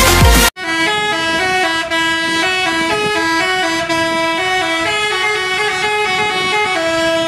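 Electronic dance music cuts off about half a second in, and a melodic multi-tone bus horn (basuri, 'telolet' horn) takes over, playing a tune of short notes that change pitch quickly and stop near the end.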